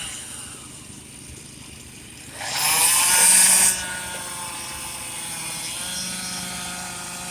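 Stihl 362 two-stroke chainsaw revved up to full throttle for about a second, starting about two and a half seconds in. Under it, engines run steadily throughout.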